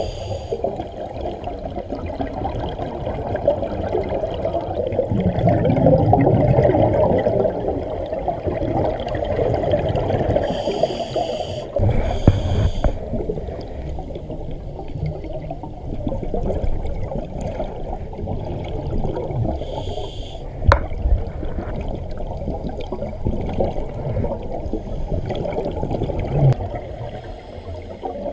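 Scuba breathing heard underwater: a continuous muffled, bubbling rumble of exhaled air from a regulator, with a few short hissing breaths in around the middle.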